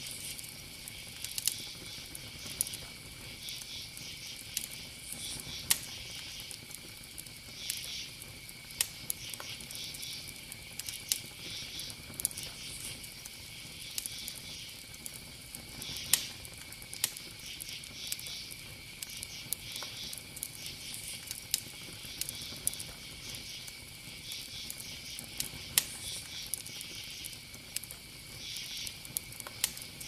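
Insects chirping: a steady high trill runs underneath, with irregular bursts of higher chirping every second or two and scattered faint clicks.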